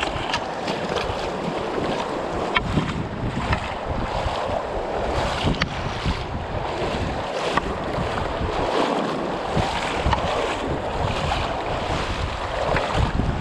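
Shallow, stony river running over rocks: a steady rush of water with scattered small splashes, with wind buffeting the microphone.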